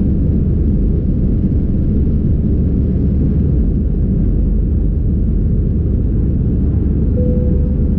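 Steady low rumble of an Airbus A320 in flight, heard from inside the passenger cabin: engine and airflow noise. A brief thin tone sounds near the end.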